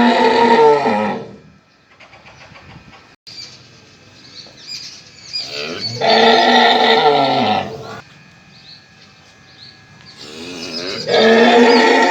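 A mother cow mooing loudly in long calls to her calf at feeding time. One call ends about a second in, a second one lasting about two seconds comes in the middle, and a third starts near the end.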